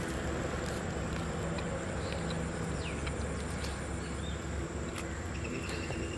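Steady outdoor background noise with a few short, faint bird chirps in the middle, and a thin steady high tone starting about five seconds in.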